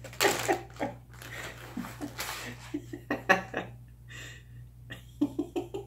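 A man laughing quietly to himself: breathy, snorting bursts of laughter and short chuckles, on and off.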